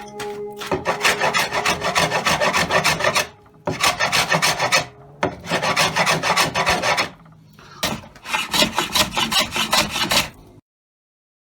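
Quick back-and-forth hand strokes abrading cedar wood, several strokes a second, in four runs of a couple of seconds separated by short pauses. The sound cuts off abruptly near the end.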